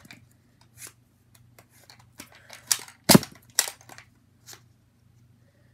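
Nerf Nite Finder spring-powered dart pistol being worked: light plastic clicks from its mechanism, then one sharp shot a little after three seconds in, followed by a couple more clicks.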